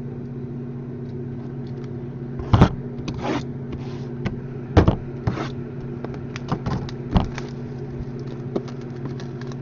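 Steady low hum, with scattered sharp clicks and light knocks from objects being handled on a table, the loudest about two and a half, five and seven seconds in.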